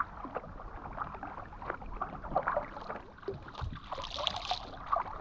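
Paddles dipping and splashing in river water as a small boat is paddled along, with scattered short knocks and drips and a brief louder hiss about four seconds in.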